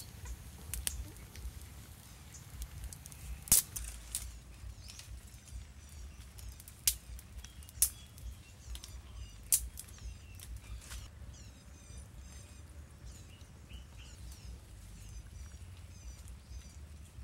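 Small birds chirping repeatedly in short high calls, with a few sharp cracks, the loudest about three and a half seconds in, over a low steady rumble.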